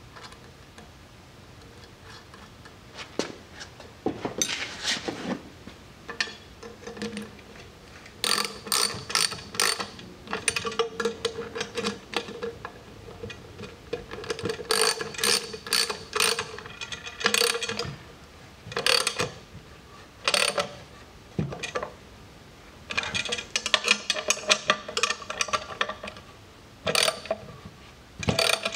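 Ratchet wrench clicking in several runs of rapid clicks, with pauses between them, as Nylock nuts are run down on the bolts of a fuel cell's flapper valve.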